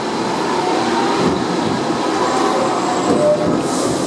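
Hong Kong electric tram running along its track, heard on board: a steady rumble and rattle from the car and its wheels on the rails.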